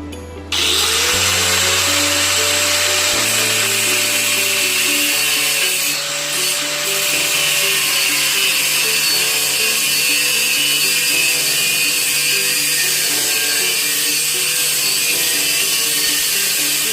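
A grinder cutting steel pipe: a loud, steady hiss of the disc on metal starts about half a second in, with the motor's whine dipping and rising as the load changes. Background music plays underneath.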